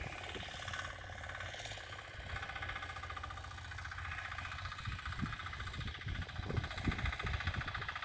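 Walk-behind tractor engine running steadily at a distance while it pulls a ridging plough through the soil. From about five seconds in, irregular low rumbles come on top of it.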